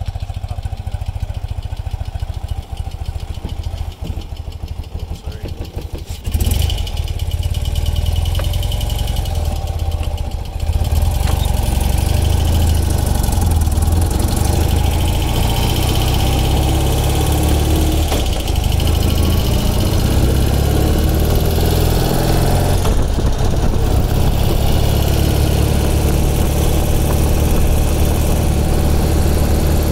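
A 1976 BMW R60/6's air-cooled flat-twin engine idling with an even beat, then pulling away about six seconds in and picking up speed, running steadily under way from then on.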